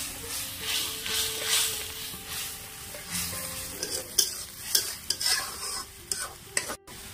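Metal spatula stirring and scraping spice masala that is frying and sizzling in oil in a steel kadhai, in repeated strokes. In the second half a few sharp clinks of metal on the pan stand out.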